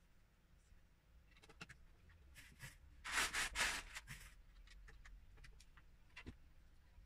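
Loose Lego bricks rattling as a hand rummages through them in a plastic storage tub, a clatter of small plastic pieces lasting about a second just after the middle, with scattered light clicks of bricks being handled before and after.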